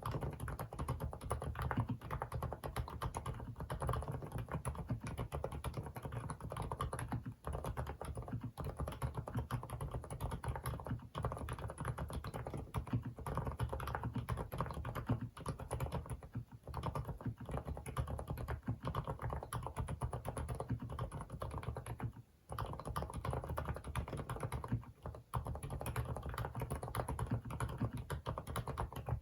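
Continuous typing on the FL-ESPORTS CMK75 mechanical keyboard with Kailh silent cream linear switches: a dense run of soft, damped keystrokes, broken by a few short pauses.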